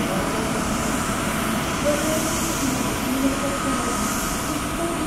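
Boeing 777-300ER's GE90 turbofan engines at taxi idle: a steady jet rumble and hiss, with a faint thin whine coming in late.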